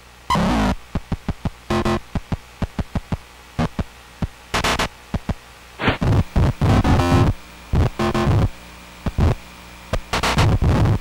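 Electronic background music made of short, choppy stuttering sounds and pitched blips in an uneven rhythm.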